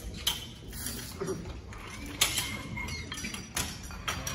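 Clanks and clinks of barbell weight plates being loaded and unloaded: a string of sharp metal knocks, the loudest about two seconds in.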